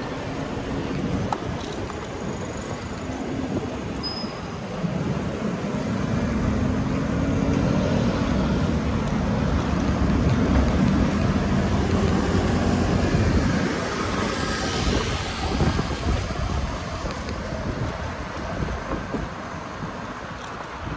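Night street traffic noise: a low rumble that swells through the middle and drops off suddenly about two-thirds of the way through.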